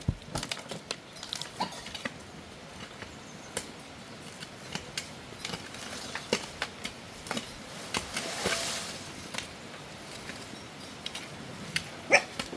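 Scattered knocks and scrapes of work in garden soil, with a longer scraping rush about eight seconds in.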